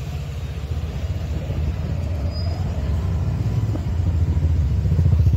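Wind buffeting a phone microphone as a low, steady rumble, with road and engine noise from a motorbike ridden through traffic, growing a little louder near the end.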